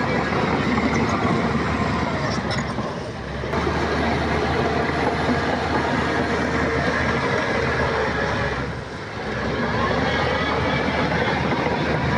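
Heavy diesel earthmoving machinery working, its engine running steadily under load, easing off briefly about three seconds in and again about nine seconds in.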